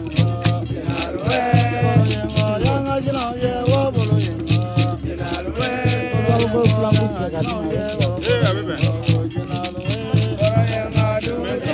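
African ceremonial music: shaken rattles keep a quick even pulse of about five strokes a second over a steady low drum beat, while a voice sings a wavering melody above them.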